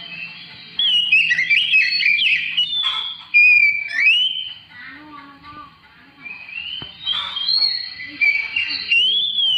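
Oriental magpie-robin (kacer) singing a varied song of clear whistled notes, slurs and quick chatter. There is a quieter lull in the middle before the song picks up again.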